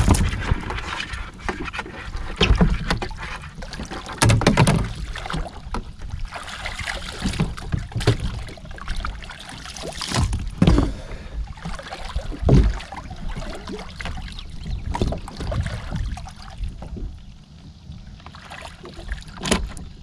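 Water splashing and sloshing around a kayak as a person in the water grabs at its side, with irregular knocks and bumps against the hull.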